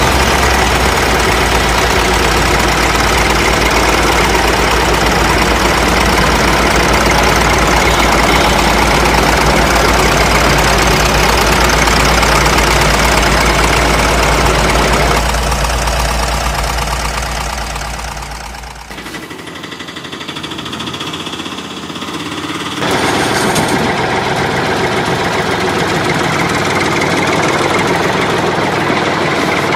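Tractor engine running steadily. The sound grows quieter for a few seconds past the middle, then comes back to full level.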